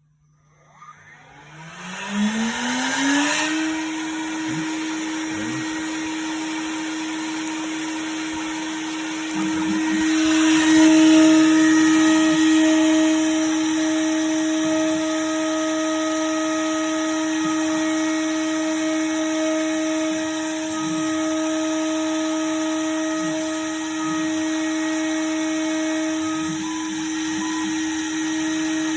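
Home-built mini CNC milling machine: the spindle motor spins up with a rising whine over the first few seconds, then runs at a steady pitch. About nine seconds in it grows louder and rougher as the cutter bites into brass, and it keeps milling steadily after that.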